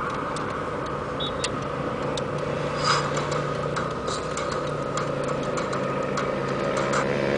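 Car cabin noise while driving: a steady engine and road hum, with scattered light clicks and ticks.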